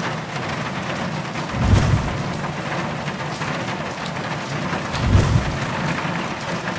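Steady heavy rain hiss, with two deep low booms about three and a half seconds apart.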